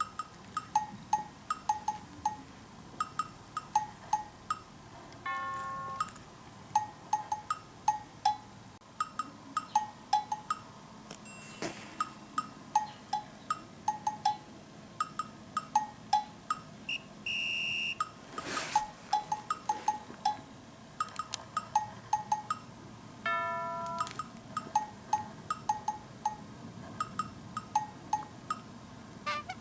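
Light, bouncy background music: a quick, even pattern of short knocking, bell-like tones, with a few brief chiming notes.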